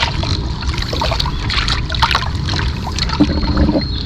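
Water trickling and sloshing around a pedal-driven kayak as it is pedalled along, over a steady low rumble, with scattered small splashes and clicks.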